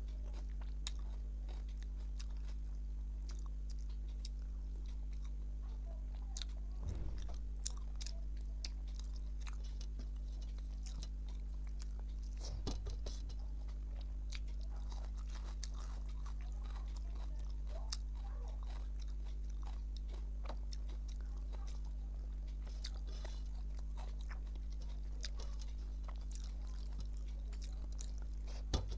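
Close-up chewing and eating sounds: scattered small wet clicks and smacks of a mouth eating rice and curry, with a few louder knocks, over a steady low hum.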